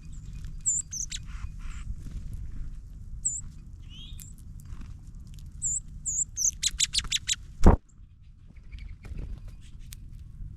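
Small songbirds at a feeder giving short, high chirps, with a quick run of rapid notes about two thirds of the way in, followed by a single sharp tap. A low, steady background rumble runs underneath.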